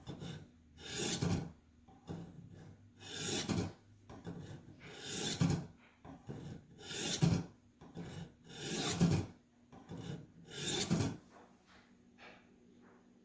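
Ka-Bar knife blade drawn through the hones of a Warthog guided knife sharpener set on its medium angle, a rasping sharpening stroke about every two seconds with lighter strokes between. The strokes stop about eleven seconds in, followed by a couple of faint clicks.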